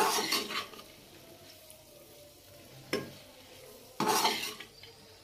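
A metal slotted spoon stirring and scraping chopped apple pieces around a kadhai: a scrape at the start, a sharp click about three seconds in, and another scrape about four seconds in, with faint sizzling of the frying pieces in between.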